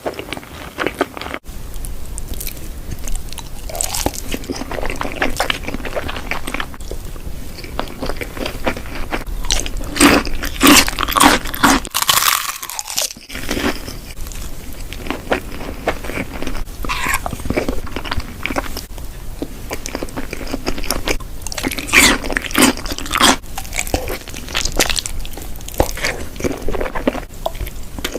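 Close-miked eating of crunchy food: irregular crisp bites and crunches with chewing, the loudest bites coming in clusters.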